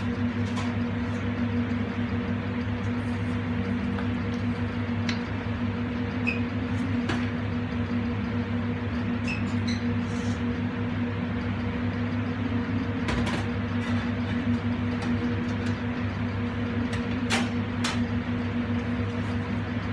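Steady low mechanical hum of kitchen machinery with a few sharp clicks and knocks, two of them close together near the end.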